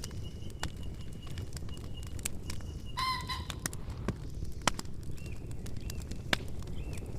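Campfire burning with a steady low rumble and scattered sharp crackles and pops. About three seconds in, a bird gives a short, harsh, pulsed call lasting about half a second. Faint thin chirps come near the end.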